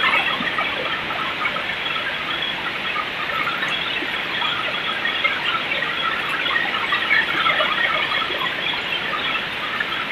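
Heavy rain pouring steadily in strong wind, a dense, unbroken patter.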